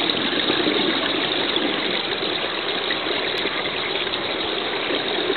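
Water running steadily into a warm spring-fed bathing pool, an even rushing noise without breaks.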